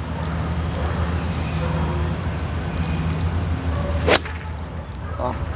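XXIO 12 7-iron swung down and striking a golf ball off the turf: a single sharp crack a little after four seconds in. A steady low hum runs underneath.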